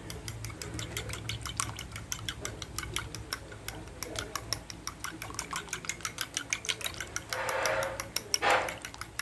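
A utensil beating eggs in a bowl, clicking against the side about five or six times a second. Two short rustling bursts come near the end.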